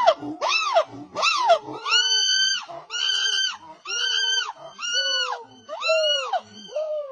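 A monkey calling in a series: a few quick calls that rise and fall in pitch, then a run of longer, steadier calls about a second apart.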